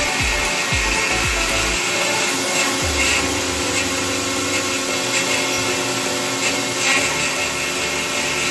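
Resemin Raptor 55 long-hole drilling rig running while drilling, a steady loud mechanical noise with a held hum; a low repeating sweeping sound stops about two seconds in.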